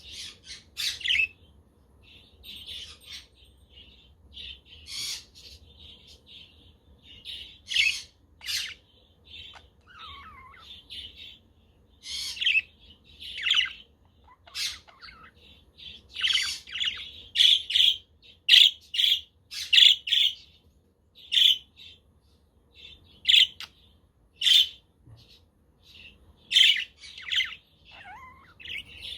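Budgerigars chirping and chattering, a steady run of short, high calls one after another, with a few harsher squawks among them.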